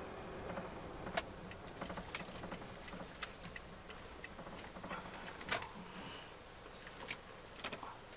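A vehicle running with a steady low rumble, with irregular sharp clicks and taps scattered through it.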